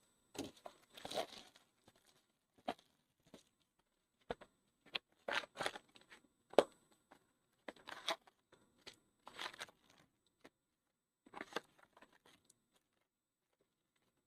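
A 2022 Topps Allen & Ginter Chrome hobby box being unwrapped and opened by hand: irregular short tearing and crinkling rustles of wrapping and card packs being handled, which stop about two seconds before the end.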